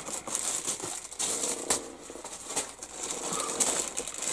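Plastic bag crinkling and rustling in uneven crackles as a plastic model-kit sprue is handled.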